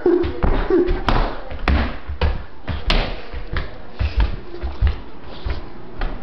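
Irregular thumps and taps, roughly two a second, from a handheld camera being jostled and knocked about close to its microphone.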